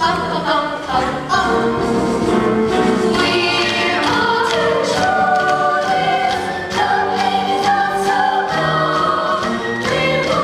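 Show-tune ensemble number: several voices singing together over instrumental accompaniment, holding long notes.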